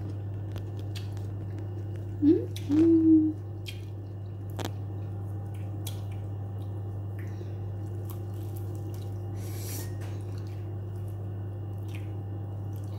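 Small clicks and soft wet sounds of people eating at a table, over a steady low hum. About two seconds in, a person makes two short voiced sounds, the louder things here.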